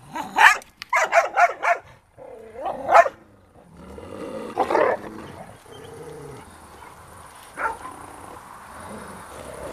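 Dogs barking and yipping: a quick run of short, sharp yelps in the first couple of seconds, then a few single barks spaced out after.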